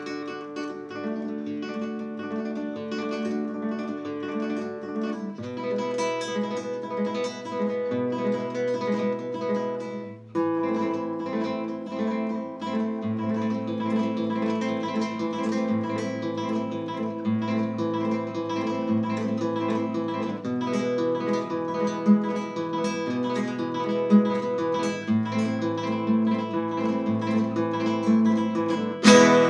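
Instrumental music led by acoustic guitar, sustained chords changing every few seconds. A sharp percussive hit comes in just before the end.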